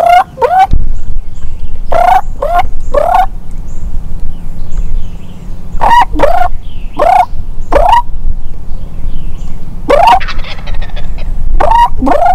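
Wild turkey toms gobbling, about a dozen loud gobbles coming in bunches of two to four in quick succession. A steady low rumble runs beneath them.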